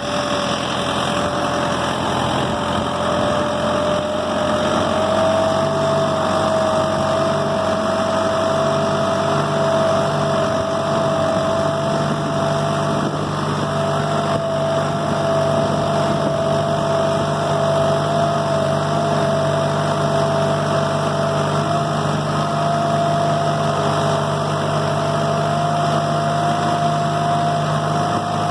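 Kubota compact tractor's diesel engine running steadily as the tractor drives along with a round bale on the front loader. A steady whine rides over it, rising a little in the first few seconds and then holding.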